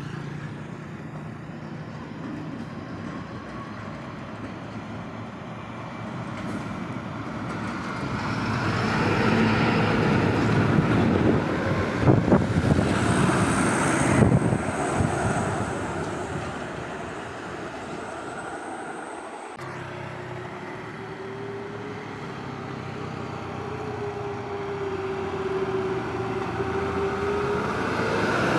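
Road traffic: a heavy vehicle's engine and tyre noise builds, passes close at its loudest about halfway through, and dies away. Then a steady engine whine builds as the next vehicle comes up near the end.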